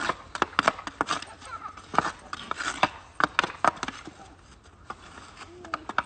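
Hockey sticks knocking against a puck, each other and the snow-covered road: sharp, irregular clacks in quick clusters, easing off for a second or so about four seconds in.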